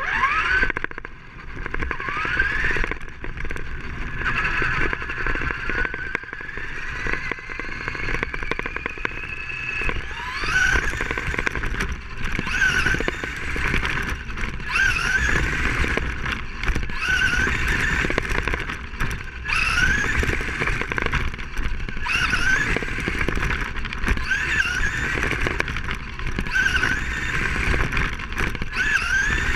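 Onboard sound of an electric RC race car pulling away and lapping a carpet track. Its motor whine glides sharply upward as it accelerates out of each turn and falls away into the next, every couple of seconds, over a low rumble of the tyres and chassis.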